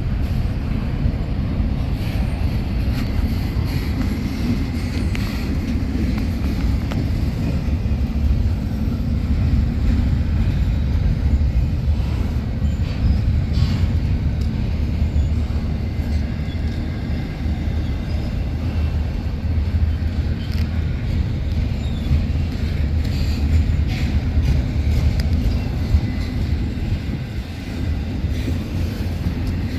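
Union Pacific train rolling past, a steady low rumble with faint clicks from the wheels and cars.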